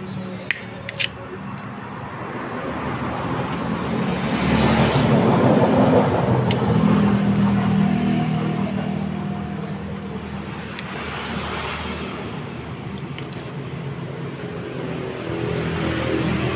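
A motor vehicle engine runs steadily in the background, swelling louder for a few seconds around the middle and then easing off. A few sharp metallic clicks come near the start and again later, from a cam chain tensioner being fitted by hand.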